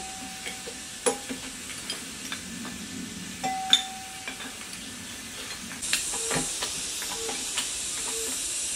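Steel wrenches clicking and clinking against the metal of a stripped diesel engine, with a short metallic ring twice. About six seconds in a steady hiss comes in, with a few light knocks over it.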